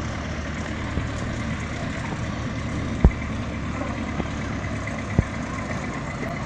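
Small engine of a park miniature train idling steadily, a low hum, with a couple of low thumps about three and five seconds in.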